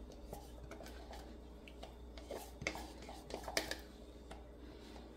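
Faint clicks and taps of a silicone spatula and whisk against a glass mixing bowl and a plastic measuring cup as condensed milk is scraped in; the sharpest taps come a little past the middle.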